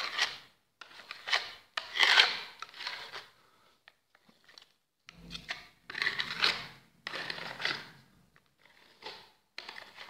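Steel trowel scraping wet Venetian plaster across a wall in repeated sweeping strokes, pulling the second coat thin over the first. There is a short pause a little past the middle.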